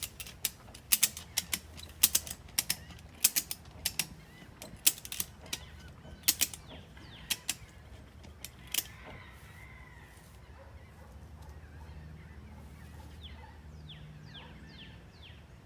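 A ratchet strap cinched around the tread of a tractor tire being cranked tight. Its pawl clicks sharply, two to three clicks a second, for about the first nine seconds, then stops. The strap is squeezing the tire so the beads spread out to seat on the rim.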